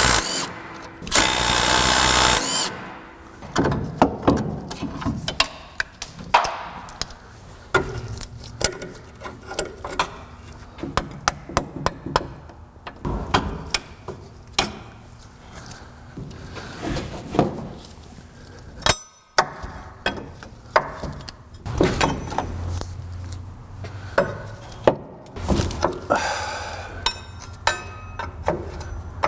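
A power tool runs briefly about a second in, then hand tools and metal suspension and brake parts clink and knock off and on as a truck's front end is taken apart, with another short burst of tool noise near the end.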